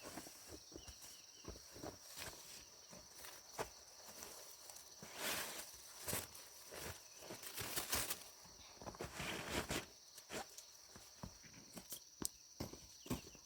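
Irregular rustling and crackling of dry corn leaves and husks, with short snaps and louder bursts of rustling about halfway through. A steady high tone runs behind it.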